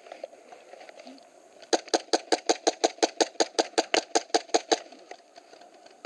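Airsoft gun firing a rapid string of about twenty shots, about six or seven a second, starting near two seconds in and stopping about three seconds later.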